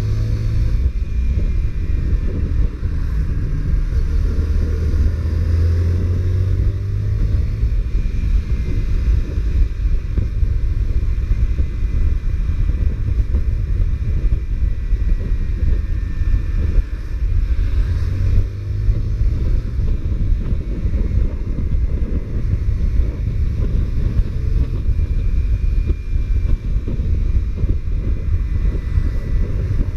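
Honda CBR125R single-cylinder four-stroke engine running steadily under way, its low note shifting a little as the throttle changes, with wind buffeting the microphone.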